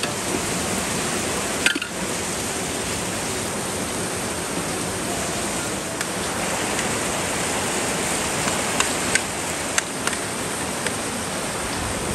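Heavy rain falling steadily, a constant rushing hiss, with a few sharp clicks.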